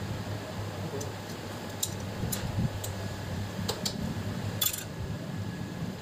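Light metallic clicks and taps of a hand tool against a motorcycle engine's crankshaft and timing-side parts: a few scattered single clicks, a quick pair, and a louder clink about two thirds through. A steady low hum runs underneath.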